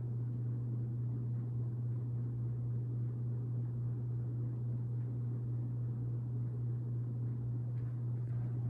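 Hampton Bay Minuet III ceiling fan running with a steady low motor hum.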